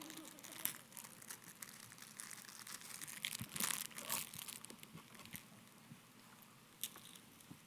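Faint, scattered crinkling and tearing of wrappers as fortune cookies are unwrapped, with a few louder crackles near the middle.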